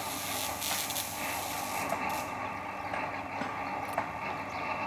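Substation isolator (disconnector) being operated open: a steady mechanical drone as its arms swing, with a couple of faint clicks.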